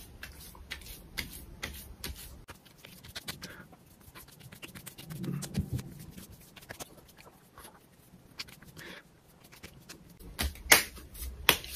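Hands patting and rubbing moisturizing gel into the skin of the face and neck: a run of short pats and clicks, loudest near the end.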